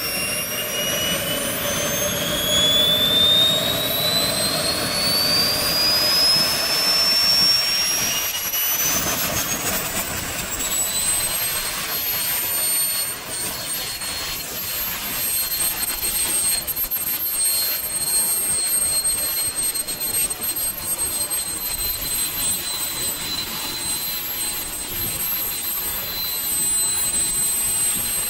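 Swiwin 300 RC model jet turbine running. Its high whine climbs in pitch over about the first ten seconds as the turbine spools up, then holds steady over a constant rush of exhaust noise.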